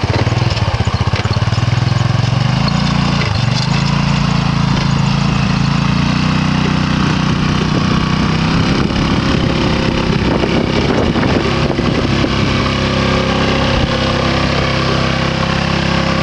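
ATV (quad bike) engine running steadily as it drives over a rough field, its pitch stepping up a little about two and a half seconds in.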